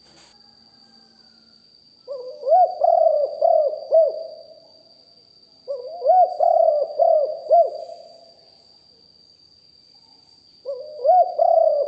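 Spotted dove cooing: three phrases of several short rising-and-falling coos, each phrase about two seconds long, a few seconds apart, the last running on past the end.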